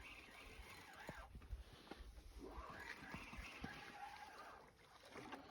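Near silence: faint, indistinct voices and a few soft, irregular clicks.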